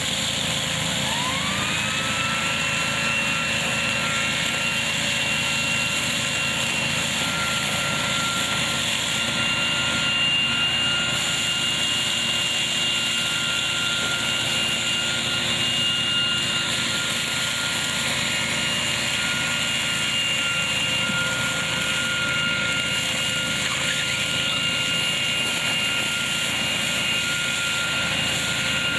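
KF-501 tractor-driven hazelnut picking machine running with its tractor engine. A steady whining tone rises in pitch about a second in as it spins up to speed, then holds steady over a dense, even mechanical noise.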